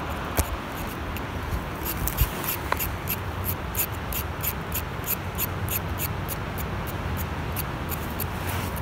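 A knife blade scraping the skin off a raw carrot in quick, even strokes, about four a second, starting about two seconds in, over a steady low background rumble.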